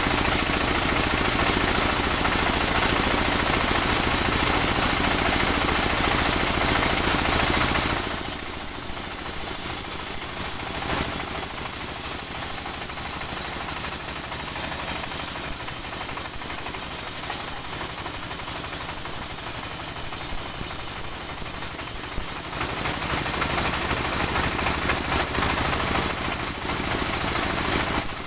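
Engine-driven portable bandsaw sawmill running and sawing a saman (rain tree) log, a dense steady mechanical noise with a constant high hiss. About eight seconds in the deeper part of the sound drops away and gets thinner, then fills back in past twenty seconds.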